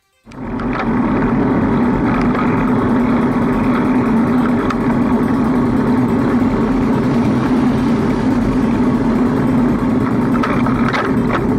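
Steady rumble of road and wind noise picked up by a handlebar-mounted action camera on a road bike riding uphill, starting suddenly just after the start, with a few light clicks near the end.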